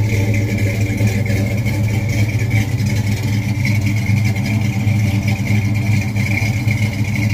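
Classic car's engine idling steadily, heard close at the tail end of the car by the exhaust.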